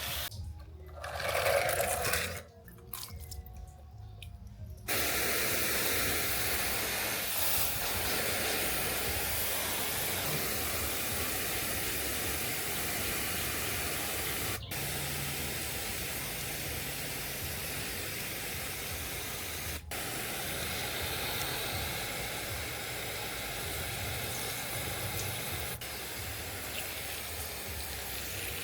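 A steady spraying hiss, with two brief breaks partway through; the first few seconds are patchier, with short gaps.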